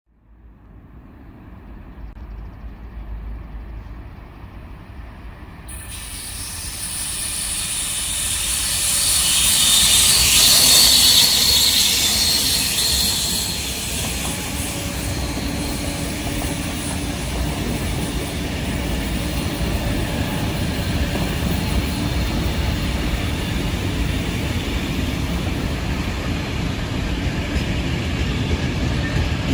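A diesel locomotive approaches and passes at the head of a long container freight train, loudest about ten seconds in. Then the container wagons roll by with a steady rumble of wheels on the rails.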